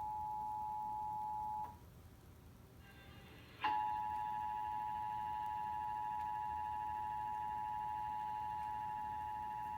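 Emergency Alert System two-tone attention signal, two steady tones sounding together, heard from a broadcast. It cuts off under two seconds in, and after a gap of about two seconds it starts again and holds steady: the alert tone of a monthly EAS test.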